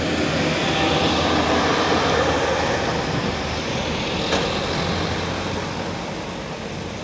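Heavy diesel engine running under load, louder over the first couple of seconds and easing toward the end, with a single short metallic knock about four seconds in.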